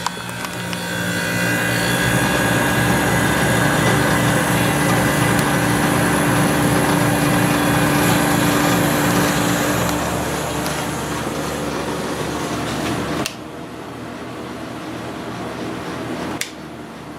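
Old Whirlpool dehumidifier with a reciprocating compressor starting up after years unused and running with a steady mechanical hum and fan noise. The hum swells about a second in, and its level drops suddenly about 13 seconds in and again near the end.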